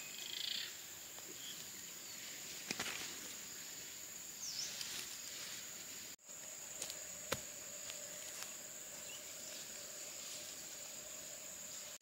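Outdoor insect chorus: a steady, high-pitched insect drone, with a lower steady hum joining about halfway. A few sharp clicks and a short falling chirp sound over it.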